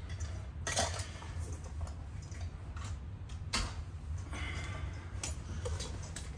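A few sharp metallic clicks and knocks from carpet hand tools being handled and set down, with lighter ticks between them, over a steady low hum.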